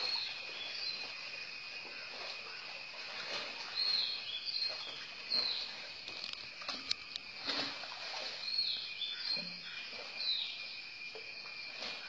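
Rural outdoor ambience: a steady high-pitched drone of insects, with short chirps repeating every second or so.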